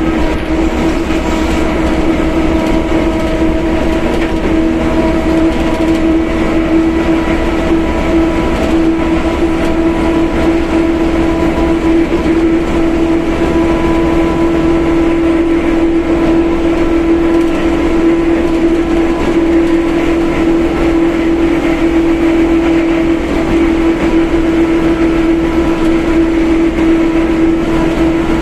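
Mercedes-Benz OF1721 BlueTec 5 bus running at a steady speed, its differential howling loudly: one steady high tone sits over the rumble of the drivetrain and road noise. The howl is the sign of a noisy, loud-running differential.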